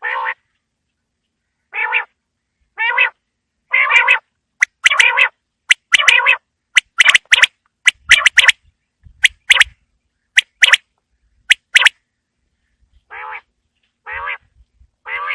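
Quail calling: a series of short, harsh notes repeated about once a second. In the middle they come faster, with sharp clicky notes, then there is a short pause and the calls start again near the end.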